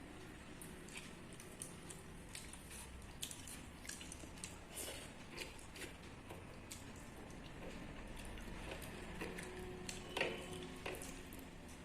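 Faint wet eating sounds: chewing, lip smacks and small squelches of pakhala, rice soaked in water, with scattered soft clicks throughout.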